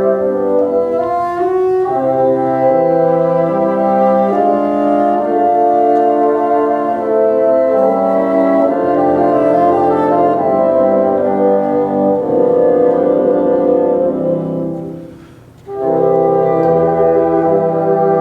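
Bassoon ensemble playing slow, sustained chords. The playing breaks off briefly about fifteen seconds in, then the chords resume.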